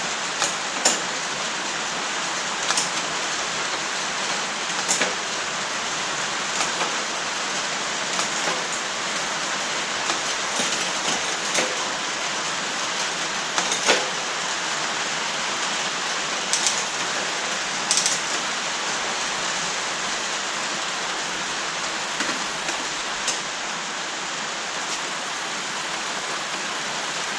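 Steady rain falling, with short sharp clicks every second or two from the bike's Shimano Sora shifters and derailleurs as it is shifted through its gears.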